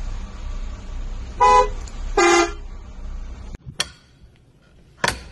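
MCI motorcoach horn sounding two short honks, the second lower-pitched than the first, over a low rumble from the idling engine. Near the end come two sharp clicks.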